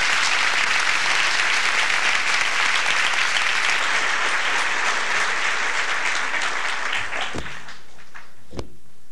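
Audience applauding, the clapping thinning and dying away about seven seconds in. Two low thumps follow near the end.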